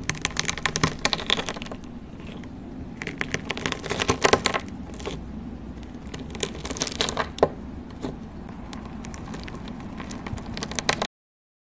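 Sequin-covered slime crackling and crunching as it is pressed with a metal scoop and cut with a blade: a dense run of small clicks and crackles that swells in a few louder clusters and cuts off suddenly near the end.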